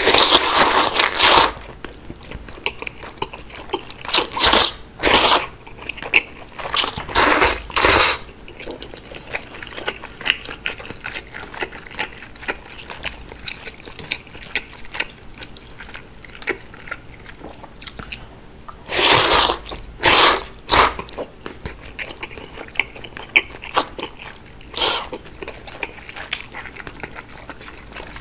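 Close-miked eating of thick cold udon noodles: loud slurps of noodles and broth, a long one right at the start, a run of shorter ones a few seconds in and another about two-thirds through, with wet chewing sounds between them.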